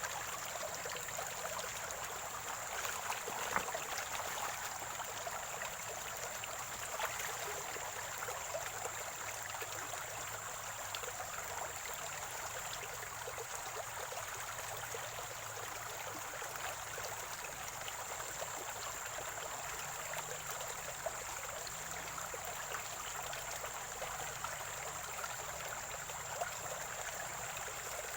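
A small spring-fed stream trickling and gurgling steadily over stones, with a few slightly louder splashes, over a steady high-pitched whine.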